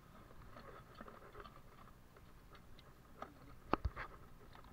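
Faint clicks and wet taps from a hand handling fish in a little water inside an aluminium pot, with a few sharper knocks against the pot between about three and four seconds in.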